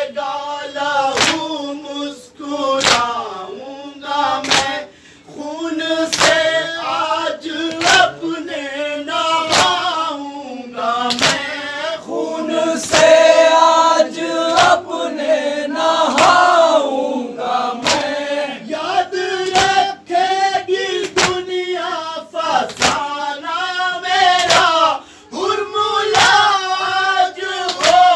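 Urdu nauha (Shia Muharram lament) sung by male reciters and a group of men, with the regular sharp slaps of matam, hands beating on chests, keeping the beat.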